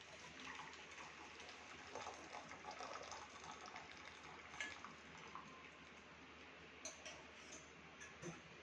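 Faint trickle of hot herbal decoction being poured through a strainer into a bowl, with a few light clicks of metal utensils in the second half.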